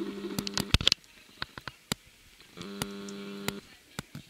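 Camcorder zoom motor running with a steady hum. It stops abruptly about a second in and runs again for about a second in the middle. Scattered sharp clicks throughout, loudest just before the hum first stops.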